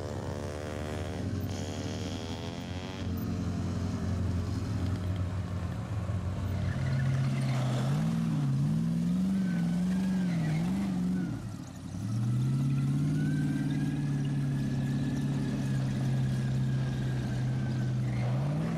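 Vehicle engines driving past. First a note slides down in pitch as one vehicle goes by. Then a louder engine rises and falls in pitch with the throttle, dips briefly, and settles into a steady drone with a faint high whine above it.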